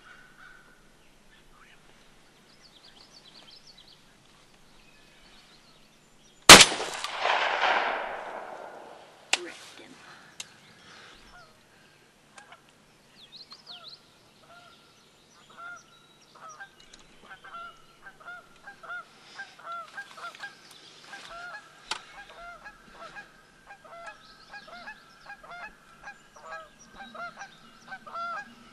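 A single shotgun blast about six seconds in, the shot at a jake turkey, its echo dying away over about two seconds. From about halfway on, turkeys yelp over and over in quick rhythmic series, growing busier toward the end.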